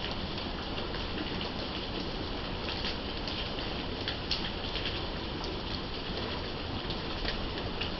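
Steady thunderstorm rain falling, with scattered louder drops ticking sharply at irregular moments.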